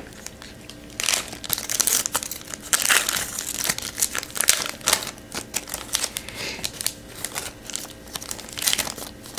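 A trading-card pack wrapper crinkling and crackling in the hands as it is worked open, an irregular run of crackles that grows louder about a second in.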